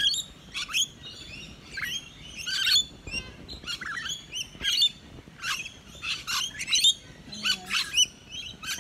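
A flock of rainbow lorikeets calling: short, high-pitched chirps and squawks following one another every half second or so.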